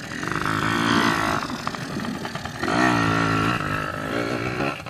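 Yamaha PW80 dirt bike's small two-stroke single-cylinder engine revving up twice as the bike pulls away.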